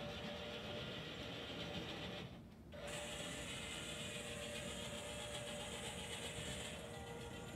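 Small wheeled delivery robot's electric drive motors and gearing running with a steady whine, cutting out briefly about two and a half seconds in, then running again.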